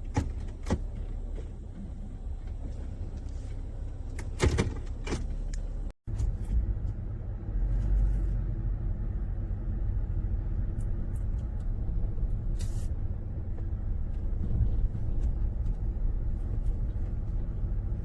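Steady low rumble of a car on the move, heard inside the cabin, with a few sharp clicks and knocks in the first five seconds. The sound cuts out for an instant about six seconds in, and the rumble then carries on steadier and a little louder.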